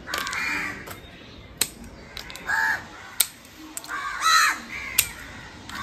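Crows cawing, three calls, mixed with three sharp clicks of pruning secateurs snipping the leaves off a mango branch.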